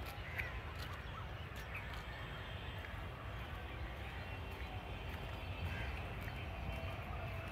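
Outdoor park ambience while walking: a steady low rumble underneath, faint scattered bird chirps, and light irregular footsteps on a paved path.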